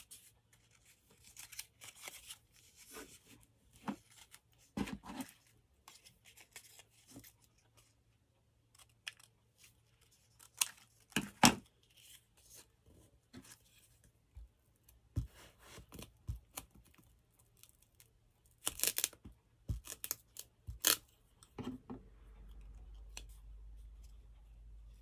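Paper strips being cut with scissors and handled: irregular snips, rustling and crinkling in short bursts, with a sharp knock about eleven seconds in.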